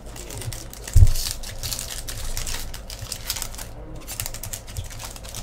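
Hockey trading cards being handled and flipped over onto a stack, a run of light clicks and flicks, with one low thump about a second in.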